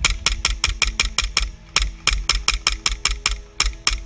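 APS XTP Shark CO2 gas-blowback airsoft pistol firing a long string of single shots, about five a second, each a sharp crack with the slide's clack, with a short pause about a second and a half in.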